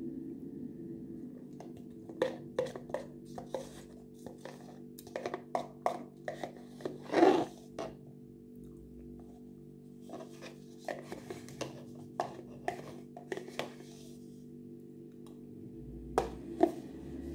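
A metal spoon clicking and scraping against a plastic yogurt tub, with eating sounds as spoonfuls of yogurt are taken. The taps come in irregular clusters, the loudest about seven seconds in, over a steady low hum.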